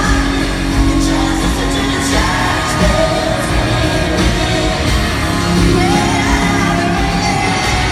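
Live country-pop band playing in a large hall, with a woman singing the lead vocal over it.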